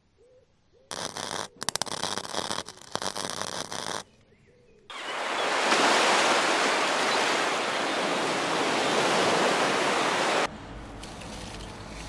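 Sound effects: an electrical crackle and buzz with sharp clicks for about three seconds, like a plug sparking in a socket, then ocean surf washing up on a beach for about five and a half seconds, the loudest part, cut off suddenly near the end.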